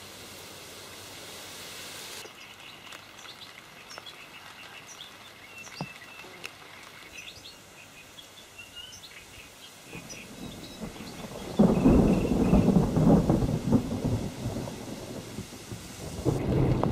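Thunder rumbling in two long rolls, the first building about ten seconds in and the second starting near the end, with small birds chirping in the quieter first half.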